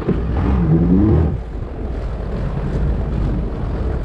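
Sea-Doo GTI 130 jet ski's four-stroke 4-TEC engine running at low speed, a steady low rumble mixed with water and wind noise, with a short rising rev in the first second.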